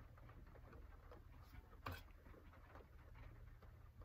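Near silence with faint clicks and taps of hands handling a plastic-cased kohl eyeliner pencil, with one sharper click about two seconds in.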